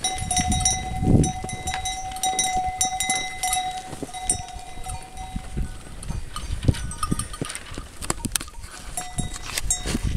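Goat herd moving about in snow while a bell on one of the animals rings: a long, steady ringing tone through the first half that fades out, then returns near the end, with repeated clinks throughout.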